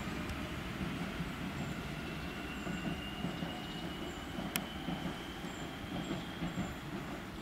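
Class 8600 DART electric train pulling away and receding, its wheels rumbling steadily on the rails, with a faint whine that rises slightly in pitch as it gathers speed. A single sharp click sounds about four and a half seconds in.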